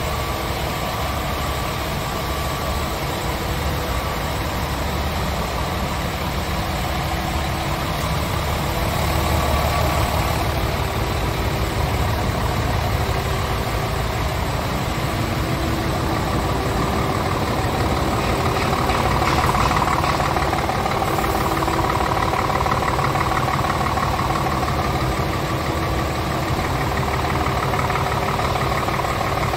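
Scania R truck engine idling steadily.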